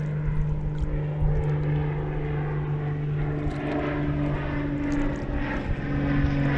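Propeller airplane flying overhead, its engine droning steadily with a low hum and buzzing overtones.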